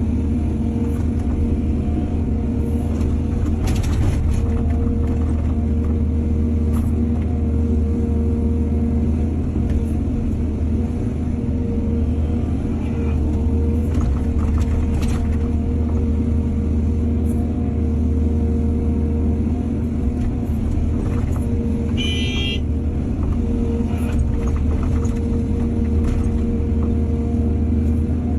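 Heavy diesel earthmoving machinery running steadily with a low engine rumble, with a few knocks along the way and a brief high-pitched squeal about two-thirds of the way through.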